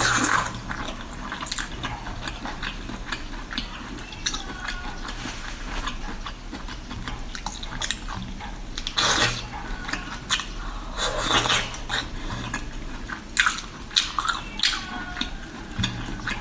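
Kitchen clatter: irregular clinks and knocks of utensils against a pot and dishes, with splashing and dripping liquid as seafood is handled and seasoned. The louder noisy bursts come about 9 and 11 seconds in.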